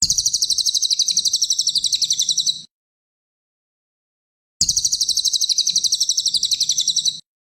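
Cililin (small minivet) singing: two fast, high trills of about ten notes a second, each lasting about two and a half seconds. Both start and cut off abruptly, about two seconds apart, as in a looped training recording.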